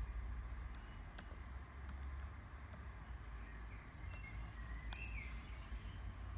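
Birds chirping in short calls, with scattered sharp clicks and a steady low rumble underneath.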